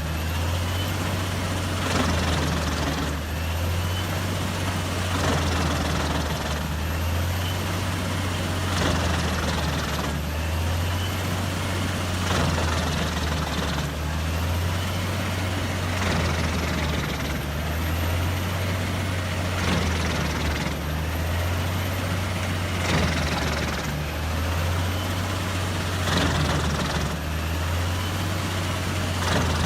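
Large forestry wood chipper's heavy diesel engine running under load, a steady low drone that swells and eases in a regular cycle about every two seconds.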